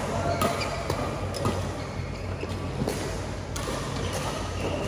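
Badminton rackets hitting a shuttlecock in a rally: a string of short, sharp hits less than a second apart, over a steady low hum.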